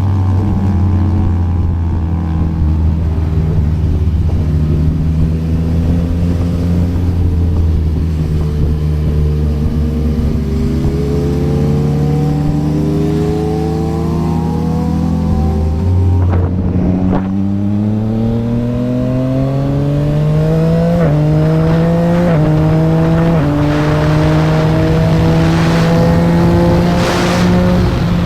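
Yamaha MT-09's 890 cc inline-three through a Yoshimura R11 exhaust: it runs at a steady low note, then about two-thirds of the way in accelerates hard, the pitch climbing through three quick upshifts. Wind noise grows near the end.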